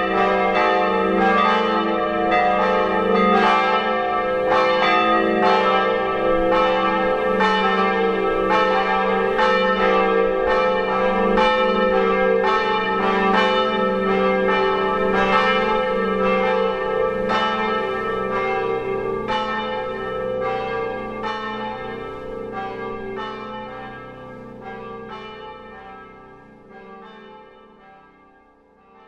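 Church bells swinging and ringing together, the full peal of both the Protestant and Catholic bells of a shared church. The strikes come fast and overlapping at first, then thin out and fade away over the last ten seconds or so as the bells come to rest.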